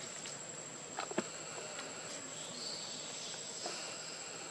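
Steady high-pitched insect drone from the forest, with a couple of short clicks about a second in.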